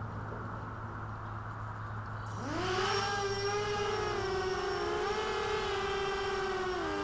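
QAV250 mini quadcopter's four brushless motors and propellers spinning up a couple of seconds in as it lifts off the grass. A steady layered whine follows, its pitch wavering slightly as it hovers and flies.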